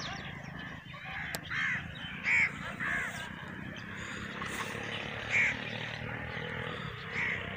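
Crows cawing, about five single caws spread over several seconds, the loudest two about 2.5 and 5.5 seconds in, over a steady low hum.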